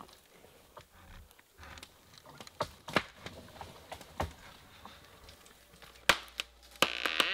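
A string of sharp wooden knocks, cracks and snaps, as of a person climbing among mangrove trunks and branches: hands and feet striking bark and twigs breaking. The knocks are irregular, with a cluster of louder ones near the end.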